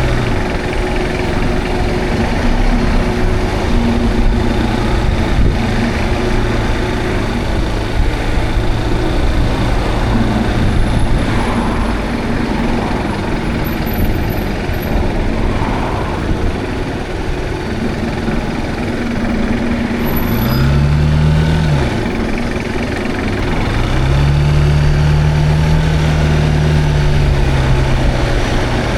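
Zontes cruiser motorcycle engine running while riding, with wind rushing over the action camera. About 20 seconds in, the engine revs up and drops back quickly; from about 23 seconds it pulls at a steadier, higher pitch.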